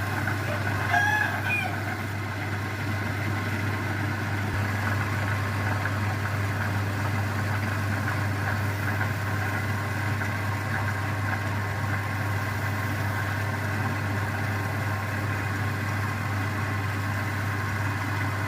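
Wood lathe running with a steady motor hum, with a short high call about a second in.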